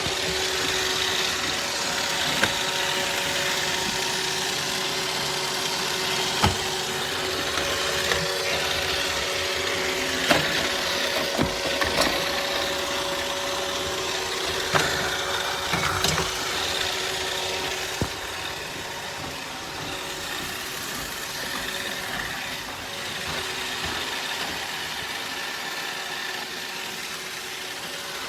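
iRobot Roomba Vac Essential (Q0120) robot vacuum running: a steady motor whir with a few steady tones, and several sharp knocks scattered through the first two thirds.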